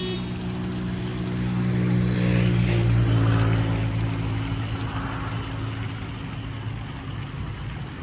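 A motor vehicle passing on the road: its engine hum grows louder to a peak about three seconds in, drops in pitch as it goes by, and fades away.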